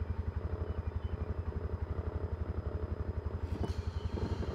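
An engine idling with a steady, rapid, even low pulse.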